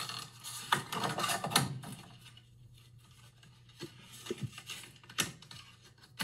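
Clear plastic clamshell packaging and a cardboard backing card being handled as a handheld electrical tester is pulled out: crackling and clicking for about the first two seconds, then a few scattered clicks and taps.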